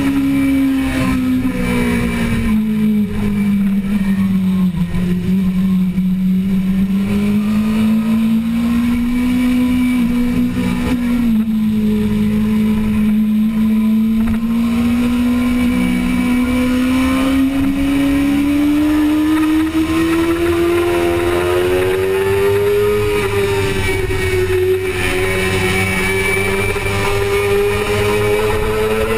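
Onboard sound of a 2005 Suzuki GSX-R600's inline-four engine at race pace. The engine note falls as the bike slows into a corner and stays low through the turn, then climbs steadily as the bike accelerates out along the straight. A quick drop in pitch near the end marks an upshift.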